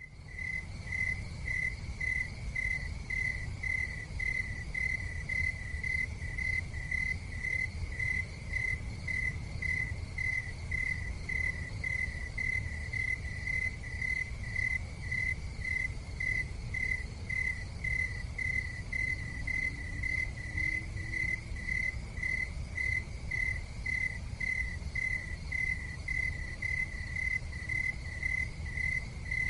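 A cricket chirping steadily at one pitch, about two chirps a second, over a low steady rumble.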